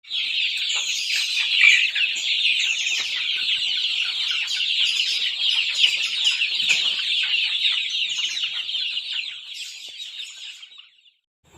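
Many chickens calling at once: a dense, steady chorus of short, high, falling peeps that fades out near the end.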